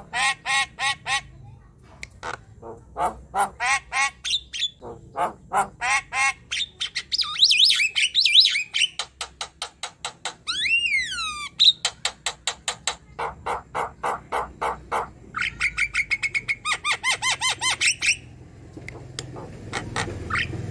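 Young Javan myna singing in full voice: rapid strings of harsh chattering notes mixed with whistles, including one long whistle that rises and falls about halfway through. The song breaks off a couple of seconds before the end, when a low rumble rises.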